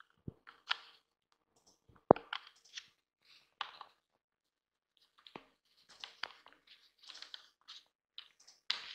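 Screwdriver driving small screws back into a plastic instrument-cluster housing: scattered clicks and short scrapes of the metal bit on the screw heads and the plastic casing, with pauses in between.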